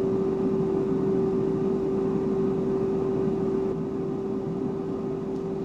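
Cosori air fryer running at 380°F: a steady fan whir with a constant hum tone. It drops slightly in level about two thirds of the way through.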